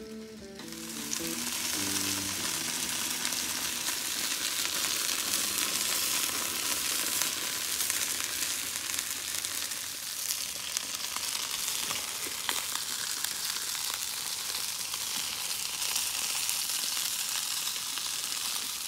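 Whole chicken sizzling on a charcoal grill over glowing coals: a steady frying hiss with a few small crackles. Guitar music fades out in the first couple of seconds.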